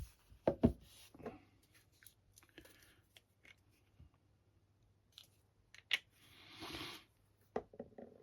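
Small clicks, taps and knocks of objects being handled on a hobby desk, with a brief hissing swish about six seconds in.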